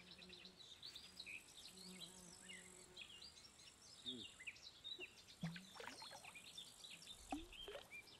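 Faint chirping of small birds: many short, quick calls, some sliding down in pitch, with a faint low hum under the first couple of seconds.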